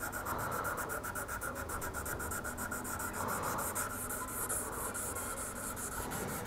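Hand sanding of a steel kitchen-knife blade with fine 800-grit sandpaper: quick, even back-and-forth scraping strokes, to smooth out scratches before polishing.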